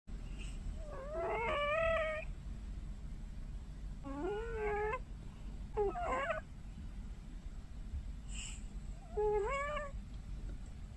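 A cat making four short, high, wavering squeaks a few seconds apart, which the owner takes for snoring. Each squeak bends up and down in pitch and lasts under a second and a half.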